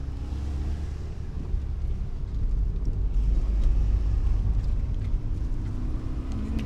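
Car driving slowly, heard from inside the cabin: a steady low engine and road rumble.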